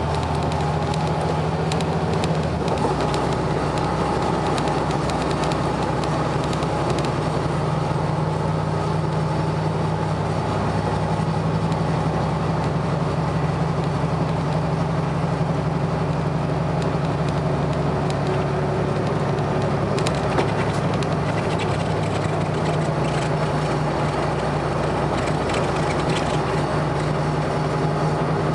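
Volvo B7RLE bus's six-cylinder diesel engine running steadily with a constant low hum, its pitch holding level.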